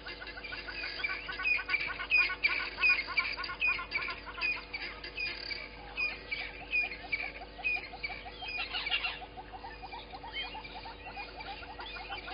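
A dense natural chorus of small wild animals calling: many overlapping short chirps repeating a few times a second, with a faster run of lower notes around the middle.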